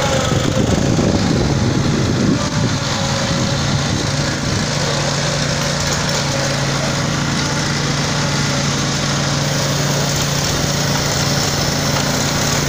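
Small gasoline engine of a ride-on road line-striping machine running steadily as the machine drives along spraying paint lines, a little louder and rougher in the first couple of seconds.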